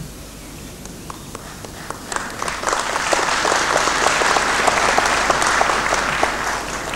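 Audience applauding for a graduate crossing the stage, a dense patter of clapping that builds up about two seconds in and eases off near the end.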